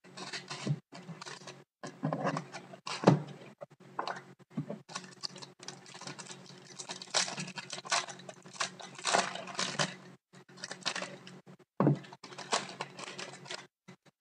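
Foil trading-card pack crinkling as it is torn open and handled, in quick, irregular rustles.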